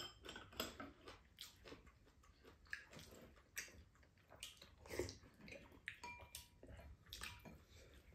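Faint eating sounds at a meal of udon and soup: quiet chewing, with short clicks of chopsticks and a metal spoon touching ceramic bowls now and then.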